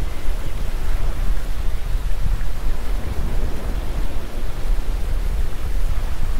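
A loud, steady rushing noise with a heavy low rumble that swells and dips.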